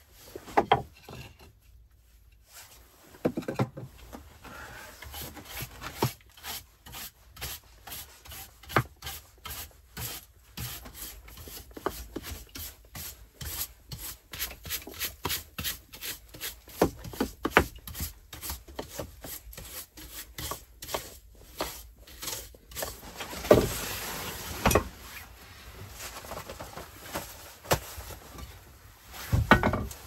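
Stiff hand brush sweeping rough wooden planks in quick, repeated scratchy strokes, with a few louder knocks of the brush against the boards.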